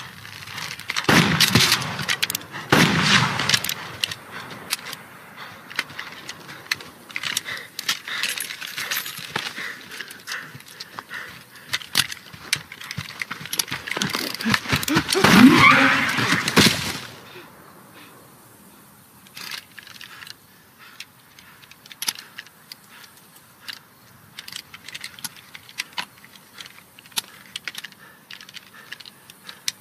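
Film soundtrack gunfire: a few loud gunshots echoing and dying away in the first half, with a longer loud burst near the middle, then quiet scattered clicks and rustles.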